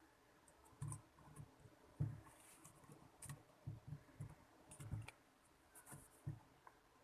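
Faint, scattered clicks and knocks of a phone mount being fitted onto a portable tripod's head.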